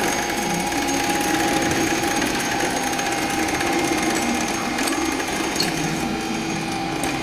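Western Mule M1000 truck crane's 12-volt electric winch motor running steadily, paying out wire rope as the hook lowers.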